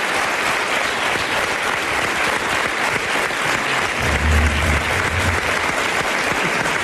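Studio audience applauding steadily, with a short low rumble about four seconds in that lasts about a second.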